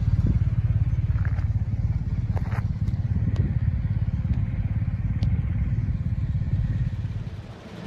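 Motorcycle engine running steadily with a fast, low pulsing exhaust note, fading out near the end.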